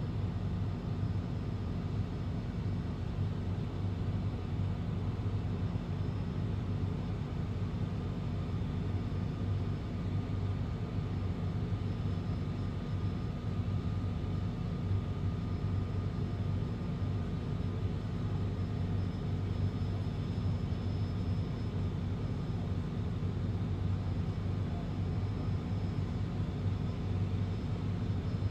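A steady, low engine hum that holds an even pitch and level throughout.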